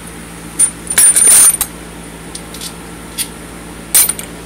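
Small metal parts such as bolts clinking as they are set down and dropped on a steel workbench during a transmission teardown: a quick cluster of clinks about a second in, then a few single clinks.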